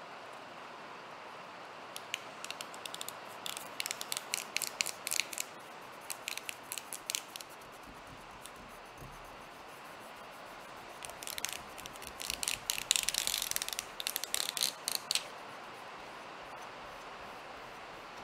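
Adhesive-backed sandpaper sheets being rubbed down by hand onto a glass plate, a dry crackling rustle of paper in two bouts, about two seconds in and again about eleven seconds in, as they are pressed flat to push out air bubbles.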